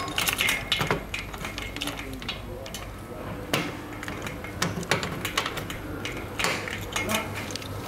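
Scattered clicks, knocks and rattles of a round multi-pin cable connector being pushed and twisted into a socket on the control box of an HDPE butt fusion welding machine.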